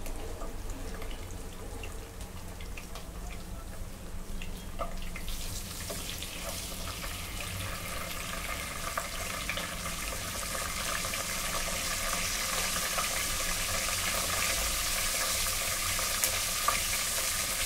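Cumin seeds, curry leaves and whole garam masala sizzling in hot oil in a cooking pot, stirred with a wooden spatula. The sizzle grows louder from about five seconds in and stays steady, with a couple of sharp pops near the end.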